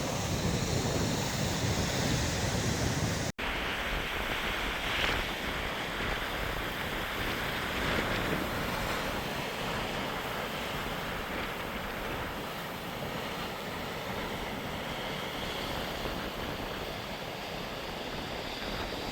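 Sea surf washing onto the shore, a steady rushing noise, with wind buffeting the microphone, heaviest in the first three seconds. The sound cuts out for an instant a little over three seconds in.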